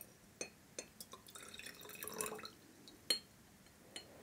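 Dilute sodium thiosulfate solution poured into a glass conical flask: a faint pour lasting about a second, with light glass taps before it and a sharper glass clink about three seconds in.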